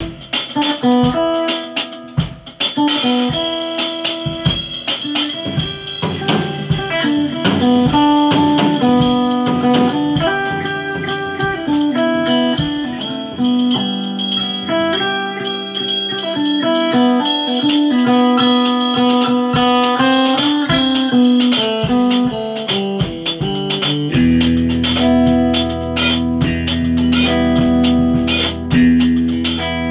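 Electric guitar, a Fender Stratocaster through a 1964 Fender Vibroverb amp, played with a drum kit in a live jam. About three-quarters of the way through, a low chord is held ringing under the drums.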